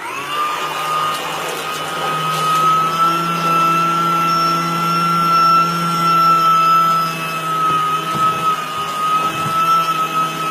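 Washing machine's electric motor switched on, starting suddenly with a whine that rises briefly and then runs steadily, over a low hum.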